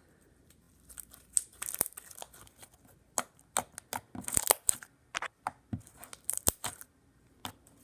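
Slime being poked and squished by hand, its trapped air bubbles popping in irregular sharp clicks and crackles.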